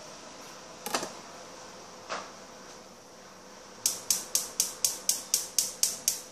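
A kitchen knife set down on a plastic cutting board with a sharp knock, and a smaller knock a second later. Then a run of about ten sharp, evenly spaced clicks, about four a second, louder than the knocks.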